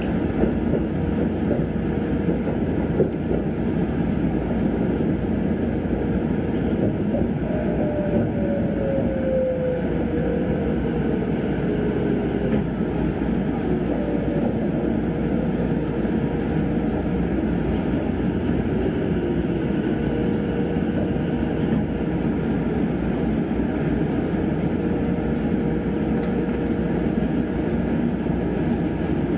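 Sanyo Electric Railway Aboshi Line electric train heard from inside the car, running with a steady rumble of wheels on track. About a third of the way in a whine falls in pitch as the train slows toward its terminus at Aboshi.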